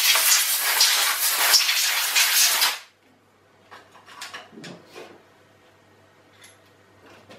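Compressed-air blow gun hissing in one loud, steady blast across the mill table, which cuts off abruptly about three seconds in. Then come a few light metallic clinks and knocks as the steel parts and clamps are handled.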